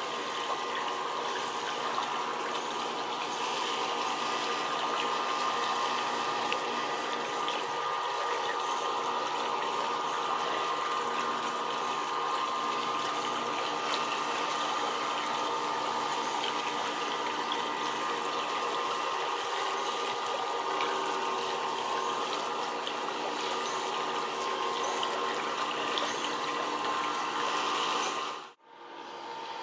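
Steady rush of running water that cuts out abruptly for a moment near the end.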